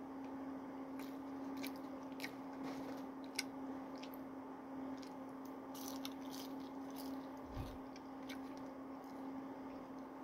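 A person biting and chewing french fries close to the microphone, with scattered short clicks. A steady low hum runs underneath.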